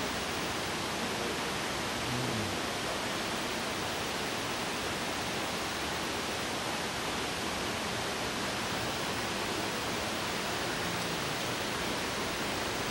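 Steady rushing of stream water in a narrow rock gorge: an even hiss that does not change.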